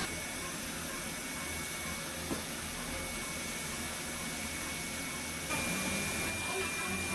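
Steady operating-room background noise: an even hiss with a faint thin high tone held throughout, growing slightly louder about five and a half seconds in.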